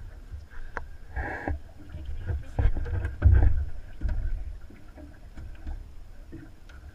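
Thumps and knocks of feet moving over an aluminium boat's floor, over a low wind rumble on the microphone; the loudest clunks come about three seconds in.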